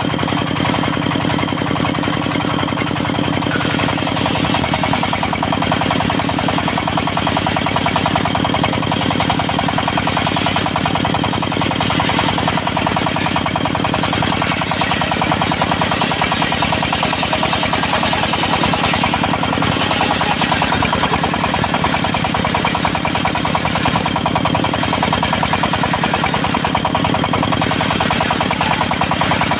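Diesel engine of a portable circular sawmill running steadily, its sound thickening slightly about four seconds in.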